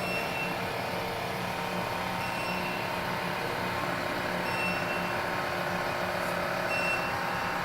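Glen GL 6074 glass kitchen chimney's extractor fan running steadily, a constant rush of air over a low motor hum.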